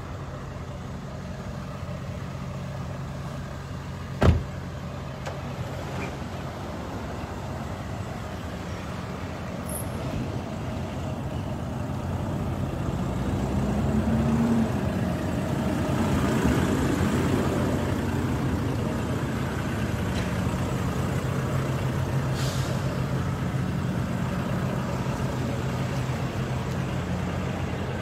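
Semi truck's diesel engine idling steadily, growing louder as it is approached. There is one sharp thump about four seconds in.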